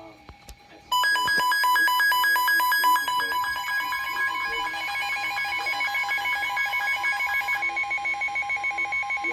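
Electronic emergency alert alarm, the alert tone that comes before a National Weather Service warning broadcast. It starts abruptly and loud about a second in: several high steady beeping pitches with rapid, even pulsing of about four a second.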